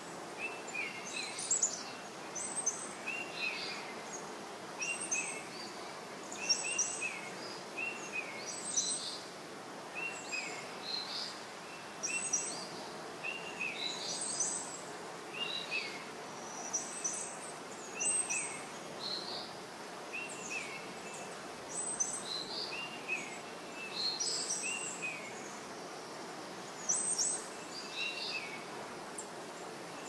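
Songbirds singing short, bright phrases of quick chirps, one every second or two, over a steady background noise.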